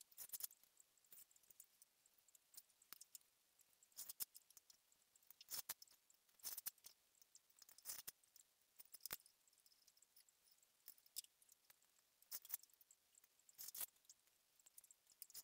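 Faint, irregular scratchy ticks and rustles of a fine 2.5 mm cane strand being threaded and pulled through a hand-woven cane chair seat.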